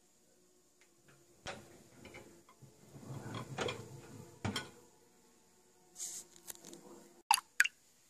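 Dishwasher wire racks and ceramic crockery being handled: irregular light clinks, rattles and scrapes as the rack is moved. Near the end come two short, sharp clicks, the loudest sounds.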